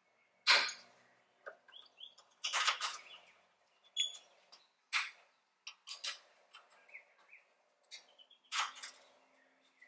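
A string of sharp metallic clicks and clatters from a set of Allen keys in their plastic holder and a key working a radiator-support bolt, the loudest about half a second in. Faint bird chirps sound between the clicks.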